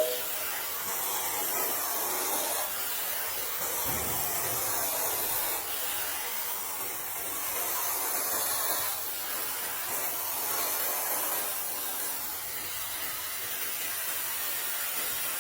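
Neakasa 2-in-1 handheld garment steamer running with a steady hiss.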